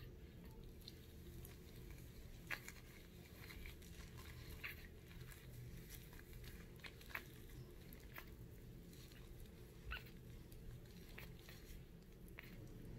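Faint wet handling of a tiny Shih Tzu puppy's soaked fur: soft drips and squishes with a handful of light clicks, over a low steady hum.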